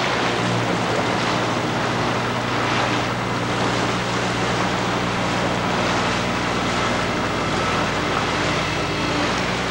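Motorboat engine running at a steady speed, a constant low drone, with wind rushing over the microphone and water rushing past the hull.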